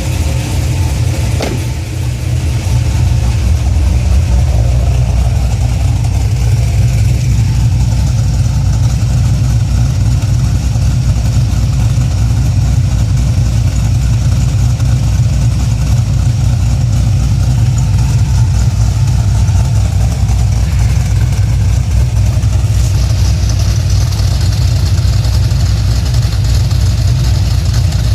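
2004 Cadillac CTS-V's 5.7-litre LS6 V8 idling steadily with a deep low rumble. A single click sounds about a second and a half in, and a higher hiss joins near the end.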